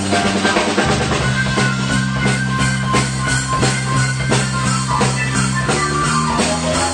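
Rock band playing a fast rock-and-roll number: rapid piano-style chords on a Yamaha S80 keyboard over a steady low bass line and drums.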